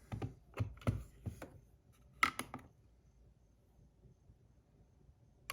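Light clicks and taps from handling a metal fidget spinner fitted with tungsten buttons. About seven come in the first two and a half seconds, then one more near the end.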